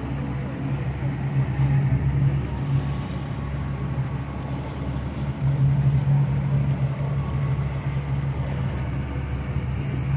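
Boat engine running steadily at low cruising speed, a low hum that grows a little louder about two seconds in and again around six seconds.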